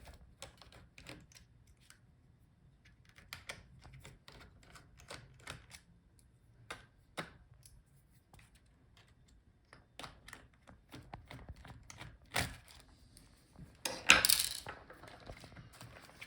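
Scattered small clicks and taps of a screwdriver and fingers working the battery screws inside an opened laptop's plastic chassis, with a sharper click about twelve seconds in and a louder rustling scrape about fourteen seconds in as the battery is handled.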